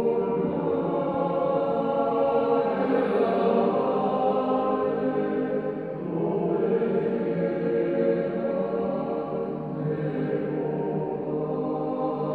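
Men's choir singing a cappella in slow, sustained chords. The phrases swell, and a new phrase begins about six seconds in and again near ten seconds.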